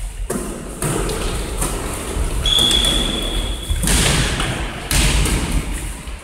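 Volleyball being struck by players' hands in a rally, a run of sharp thuds several times a second apart, with footsteps on the wooden hall floor. A single high squeak, held about a second, comes near the middle.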